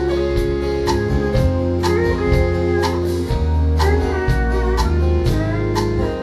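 Live country band playing a short instrumental passage between sung lines: guitars over bass and a steady drum beat of about two hits a second.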